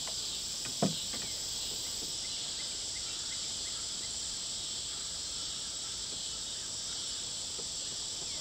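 A steady, high-pitched chorus of insects droning without a break, with one short knock about a second in.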